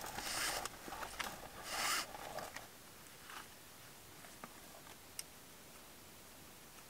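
Nylon climbing webbing rustling and rasping as it is pulled and threaded around a rock, with the loudest stretch in the first two and a half seconds. A few faint clicks follow.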